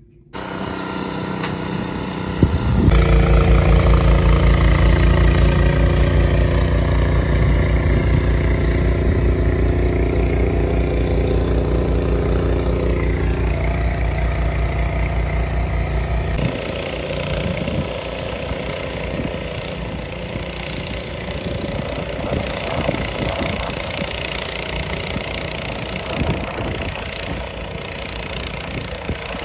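An engine running, with a steady, even-pitched hum that grows louder about three seconds in and turns rougher and noisier around the middle.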